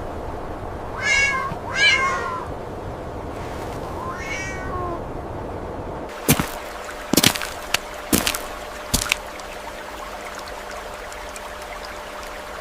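A cat meowing three times, each call falling in pitch, over a steady background hiss. About halfway through comes a quick series of sharp snaps.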